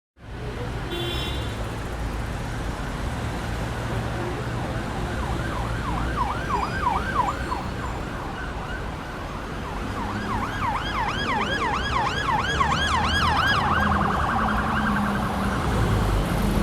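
Siren yelping in quick rising-and-falling sweeps, about four a second, over a steady low rumble. It sounds briefly about six seconds in, comes back about ten seconds in, and changes to a faster warble near the end.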